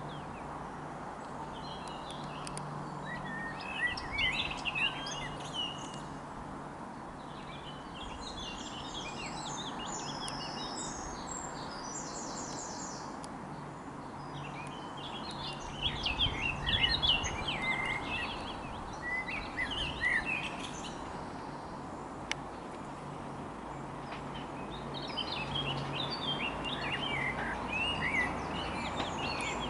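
Several songbirds singing, with clusters of short chirps and trills that come and go, over a low steady hum.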